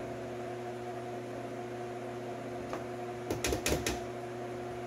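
A quick cluster of about four sharp clicks and rattles from hard door-trim parts being handled and fitted around the inside door handle of a car door panel, over a steady hum.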